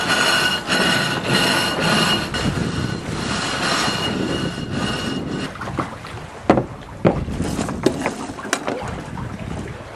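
Rush of wind and water aboard a sailing catamaran under way, loud for the first half. Then four sharp knocks come about 0.7 s apart.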